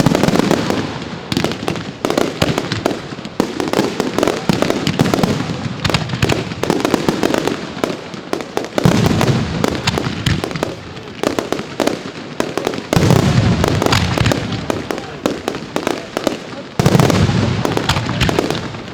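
Professional fireworks display: dense crackling and rapid bangs throughout, with heavier deep booms about 9, 13 and 17 seconds in.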